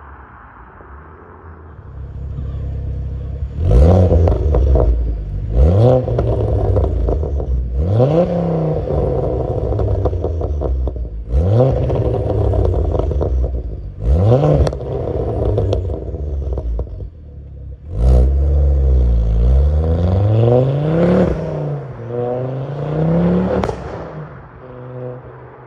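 Ford Focus ST225's turbocharged five-cylinder engine through a Mongoose Section 59 cat-back exhaust, revving and accelerating hard. The pitch climbs in about seven sweeps, with a sharp crack at several of the breaks between them.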